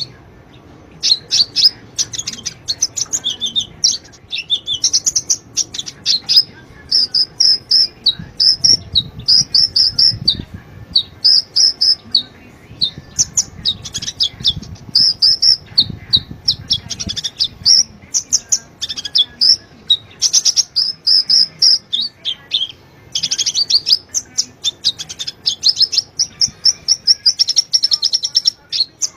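A kolibri ninja sunbird (konin) singing: fast, high-pitched chirping and trilling in quick phrases with brief pauses between them.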